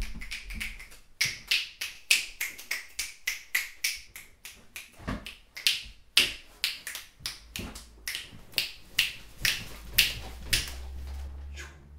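A long run of sharp, irregular snaps or clicks, about two to three a second.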